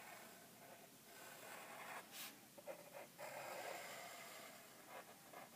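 Faint scratching of a graphite pencil on paper in short strokes that come and go, with a light tick about two seconds in.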